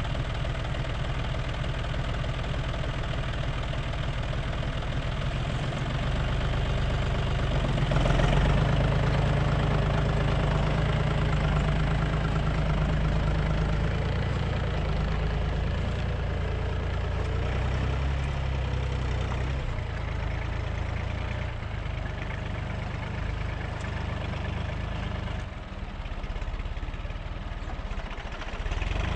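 Tractor's diesel engine running steadily as it pulls a laser land leveler across tilled soil. It is loudest about eight seconds in, then slowly fades as the tractor moves away.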